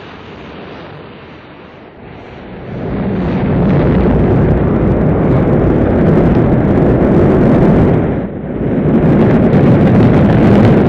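Rocket engines firing at liftoff: a deep, rushing rumble that swells much louder two to four seconds in and then holds, with a brief dip about eight seconds in.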